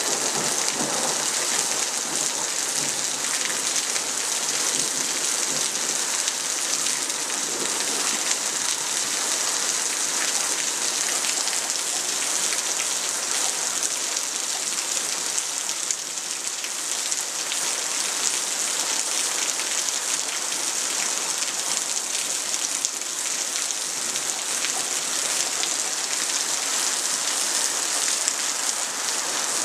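Heavy rain falling steadily in a storm: a dense, even hiss that holds at the same level throughout.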